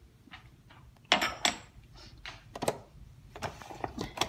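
Irregular clicks and knocks from handling a stand mixer: its tilt head is lowered over the stainless steel bowl with the beater set in the flour. The mixer's motor is not running.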